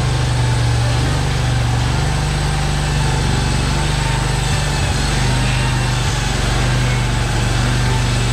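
Small gasoline engine of a Hud-Son Oscar 336 portable sawmill running steadily. The owner says the engine is running poorly.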